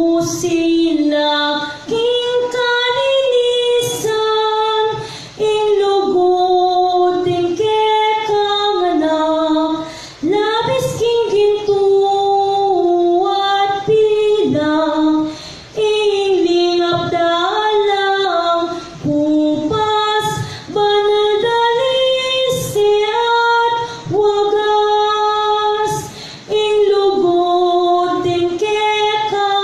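A woman singing a Kapampangan hymn into a handheld microphone, in phrases of held notes with short breaks for breath.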